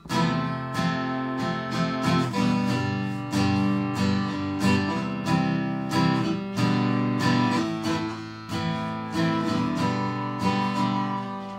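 Steel-string dreadnought acoustic guitar strummed in chords, a steady stroke about every half second or so. Near the end the strumming thins and the last chord is left to ring out.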